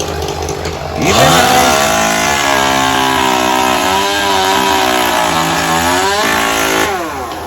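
A gas engine revs up about a second in, holds at high speed for about five seconds, then drops back to idle near the end.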